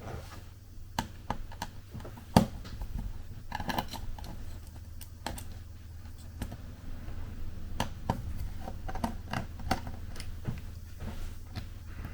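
Small irregular clicks and taps of a screwdriver and laptop parts being handled while the laptop's screen hinge is taken apart, with one sharper tap about two and a half seconds in, over a low steady hum.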